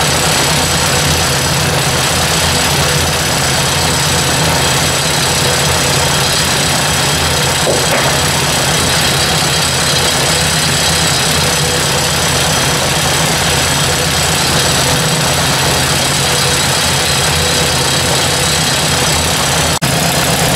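Ford 800 tractor's four-cylinder engine idling steadily, with one short sharp click near the end.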